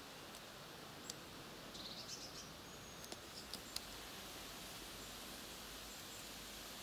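Quiet woodland ambience: a steady low hiss, with a brief twitter of high chirps from a small bird about two seconds in and a few sharp ticks soon after.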